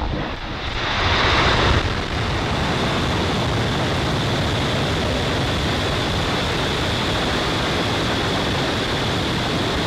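Falcon 9 first stage's nine Merlin 1D engines firing during liftoff: a loud, steady rush of rocket noise with a deep rumble beneath. It swells for about a second near the start, then holds even.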